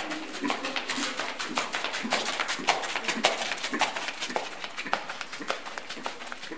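Horse cantering on a sand arena: hoofbeats and breathing in a steady rhythm of about two strides a second, with scattered sharp clicks.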